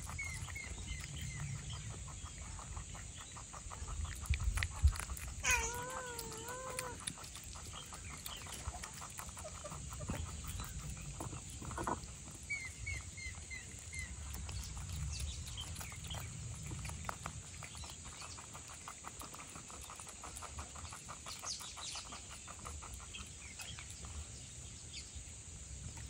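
Cats and rabbits eating from bowls: a steady stream of small chewing and lapping clicks. Short bird chirps come near the start and again around the middle, and one drawn-out, wavering call sounds about six seconds in.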